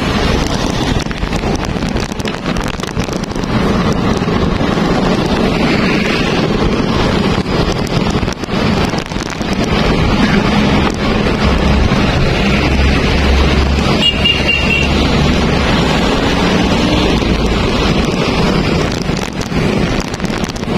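Wind buffeting the microphone of a camera on a moving bicycle, with road traffic passing close by.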